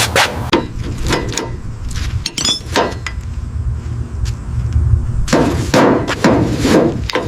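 Irregular hammer-like knocks and clinks of hand tools on metal bodywork, thickening into a quicker run of knocks near the end, over a steady low hum.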